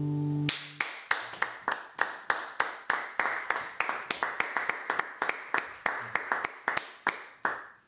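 A nylon-string classical guitar's final chord rings and is cut off about half a second in. Then one person claps steadily, about four claps a second.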